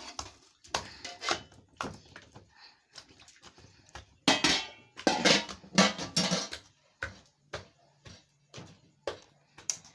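Pots, dishes and utensils clinking and knocking at irregular moments during kitchen work, with a louder run of knocks and scraping about four to six seconds in.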